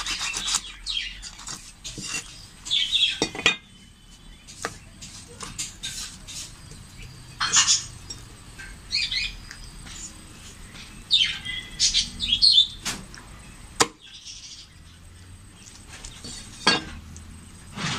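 A heavy curved knife chopping raw chicken on a wooden chopping block: a handful of sharp, spaced-out chops. Birds chirp in between.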